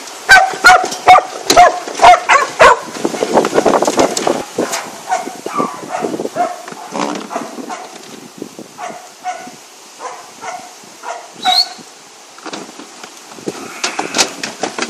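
A dog barking repeatedly, in quick runs of barks for the first few seconds and then more spaced out. Sharp knocks from the metal sheep handler sound among the early barks.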